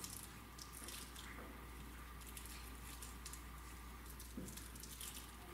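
Quiet room tone: a low steady hum with faint scattered ticks and rustles.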